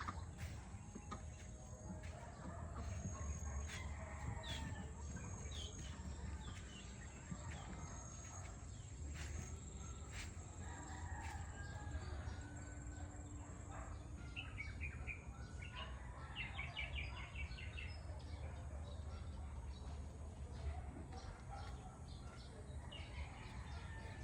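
Farm fowl calling and chirping here and there, with a quick run of chirps about two-thirds of the way through, over a steady low rumble.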